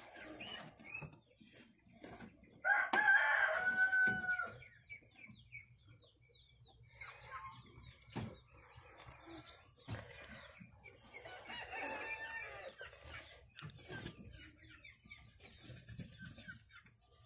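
A rooster crowing twice: a loud crow about three seconds in and a fainter one around twelve seconds, with small clicks and rustles between them.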